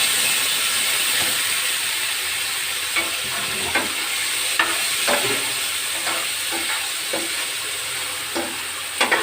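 Onions, green chillies and freshly added tomatoes frying in hot oil with a steady sizzle. A spoon stirs through them, knocking against the pan a dozen or so times, twice more loudly near the end.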